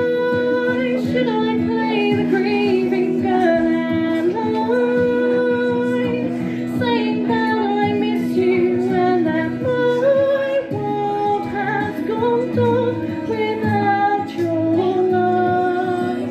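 A woman singing solo into a microphone over a sustained instrumental accompaniment, her melody rising and falling in held notes.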